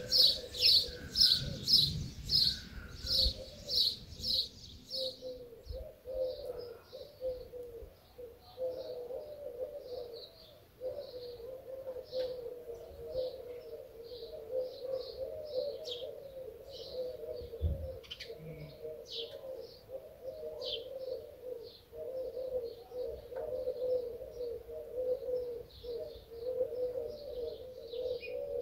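Birds: a quick, even series of loud high chirps, about two or three a second, for the first four seconds or so, then softer scattered chirps over a steady, low, wavering sound.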